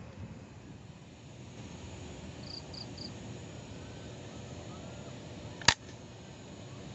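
A single sharp air rifle shot a little over five seconds in, over a steady background of insects. Three quick high bird chirps come a few seconds before it.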